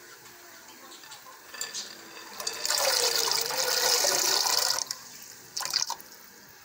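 Soaked black chickpeas poured from a glass bowl into water in a pressure cooker: a splashing, gushing pour of about two seconds that starts a little before halfway, then one short last splash.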